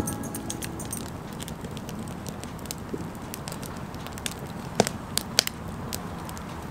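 Wood campfire crackling, with scattered pops and a few louder snaps about five seconds in.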